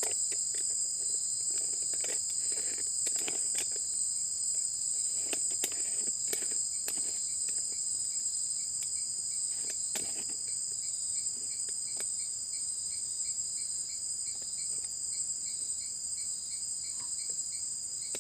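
Steady, high-pitched chorus of insects. Over it, in the first ten seconds or so, a scatter of light clicks and knocks as the metal upper piece of a coffee pot is fitted onto the pot.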